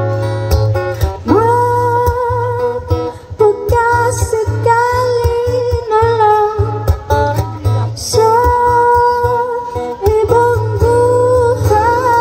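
A woman sings long, wavering notes into a microphone while strumming an acoustic guitar. The sound comes through a PA system.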